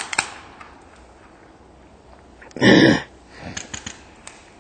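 Paintball markers firing: a couple of sharp pops at the start and a short cluster of pops past the middle. About halfway through comes a loud burst of noise lasting about half a second, the loudest sound.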